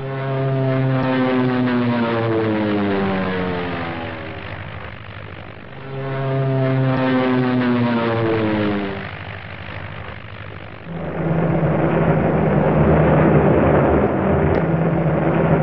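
Propeller aircraft engines on an old film soundtrack: two passes in which the engine pitch falls over a few seconds, then a steady engine drone from about eleven seconds in.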